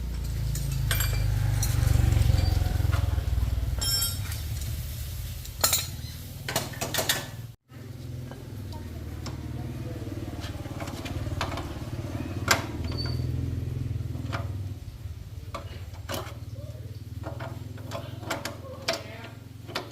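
Metal tools and motorcycle parts clinking and knocking during hand work on the wheel, in scattered irregular strikes over a steady low hum.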